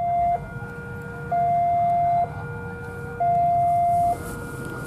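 Electronic two-tone railway level-crossing warning alarm, alternating evenly between a higher and a lower tone about once a second, signalling that a train is approaching.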